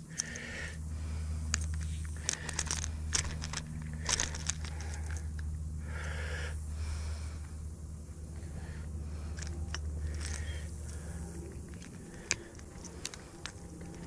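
Scattered sharp clicks, scrapes and rustles of close handling noise over a steady low hum; the hum stops about three-quarters of the way through.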